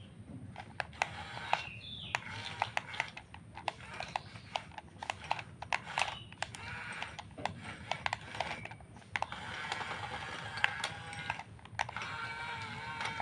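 Radio-controlled construction models at work: small electric motors whining in wavering tones, over rapid irregular clicks and rattles.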